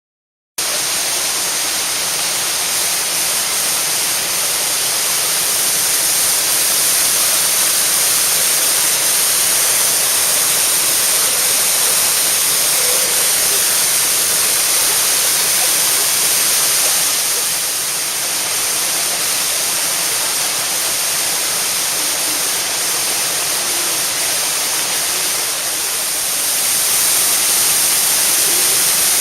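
Waterfall: a steady, loud rush of falling water that cuts in suddenly about half a second in, eases slightly past the middle and grows a little louder near the end.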